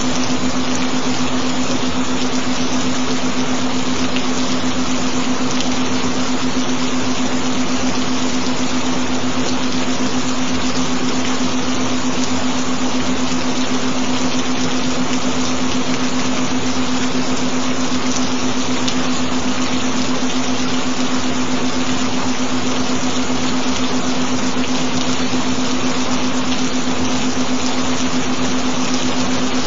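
Steady recording of gentle rain, an even hiss with no breaks, layered with a constant low tone.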